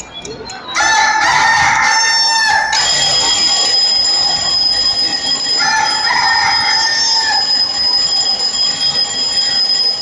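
A rooster crowing sound effect on a dance soundtrack, crowing twice: about a second in and again past the middle. It follows a few ticks of a clock and is joined by a brief fast ringing, then a steady high tone like an alarm, a wake-up cue.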